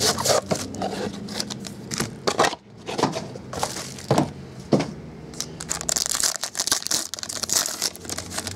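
Plastic wrap and a foil trading-card pack wrapper crinkling as they are handled and torn open: irregular crackling with a few sharper snaps.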